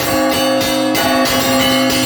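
Orthodox church bells ringing together: quick strikes on smaller bells, about three a second, over the sustained tones of larger bells.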